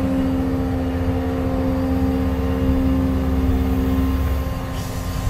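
CAT 335 excavator's engine running steadily, heard from inside the cab, with a steady hum and a low rumble that grows heavier for a couple of seconds in the middle, then eases.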